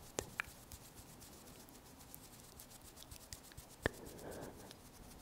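Faint soft rubbing of hands close to the microphone, with a few small sharp clicks: two near the start and one about four seconds in.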